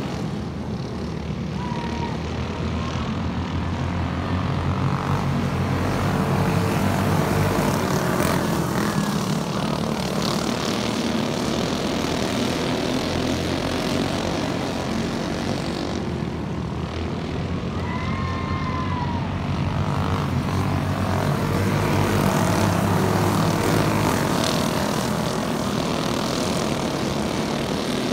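A pack of racing karts with Predator 212 single-cylinder four-stroke engines running hard together. The sound swells louder twice as the pack passes close and fades between passes.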